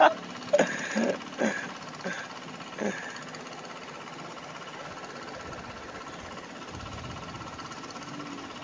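A steady faint mechanical hum, with a few short sounds in the first three seconds.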